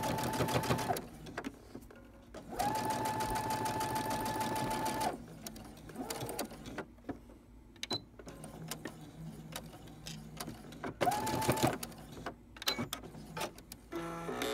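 Electric sewing machine stitching a label onto a thick terry towel in three runs: about a second at the start, a longer run of about two and a half seconds, and a short burst near eleven seconds, the motor's whine rising as each run starts and falling as it stops. Light clicks and knocks of handling between the runs.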